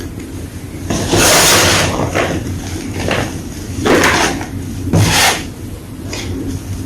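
Gym chalk blocks crunching and crumbling as they are crushed, in about six irregular crisp crunches, the longest about a second in.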